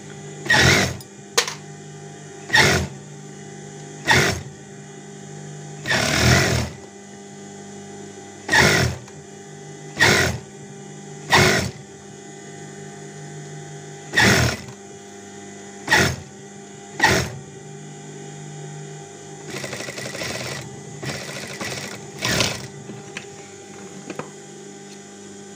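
Industrial lockstitch sewing machine stitching a shirt collar onto the neckline in about a dozen short, slow bursts, each under a second, over its motor's steady hum between bursts.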